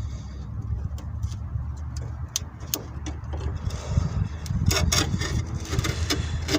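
Pliers working a fuel-line retaining clip at the fuel filter: scattered small metal clicks, with a busier run of clicking and scraping about five seconds in, over a steady low rumble.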